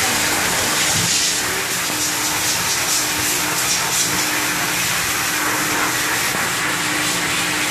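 A high-velocity pet grooming dryer blowing air through its hose onto a wet Shiba Inu's coat: a loud, steady rush of air with a faint motor hum beneath it.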